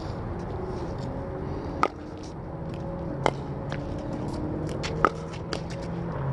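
Pickleball paddles striking a plastic ball in a rally: three sharp pocks about a second and a half apart, with fainter ticks between, over a steady low hum.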